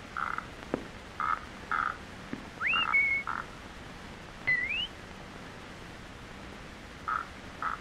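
Cartoon sound effects over the hiss of an early optical soundtrack: a run of short blips, and two whistle slides rising in pitch, about three seconds in and again about four and a half seconds in.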